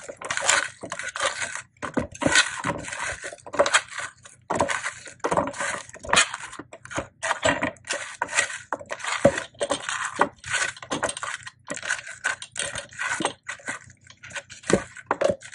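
Hands tossing and rubbing oiled, seasoned kabocha squash wedges together on a cutting board: a fast, irregular run of short scraping and knocking noises.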